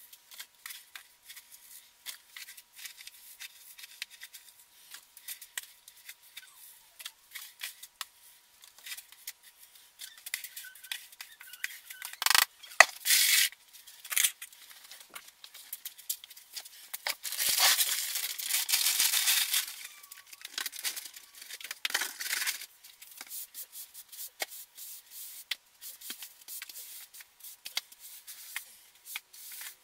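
Scraping, raking and rattling of a plastic scoop in clumping cat litter in a plastic litter box, with scattered clicks and rustles, and louder spells of scraping about 12 and 18 seconds in. Near the end a broom sweeps the floor.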